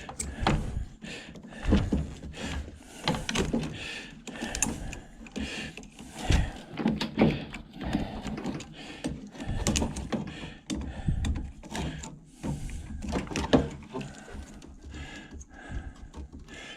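Irregular clicks, knocks and rattles of hands unhooking wire connectors and handling parts inside a hot beverage dispenser.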